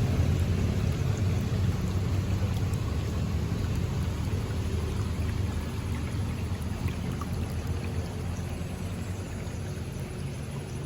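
River water flowing, a steady low rushing that slowly gets quieter over the stretch.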